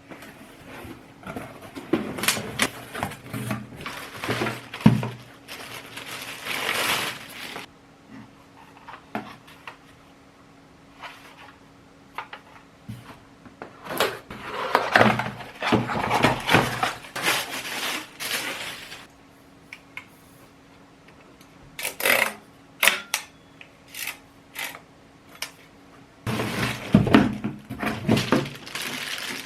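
Box and packaging of a vacuum cleaner being handled and unpacked: irregular bursts of rustling, scraping and knocking, with pauses of a few seconds between them.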